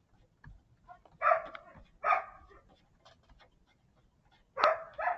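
A dog barking: two barks about a second in, a second apart, then a third near the end.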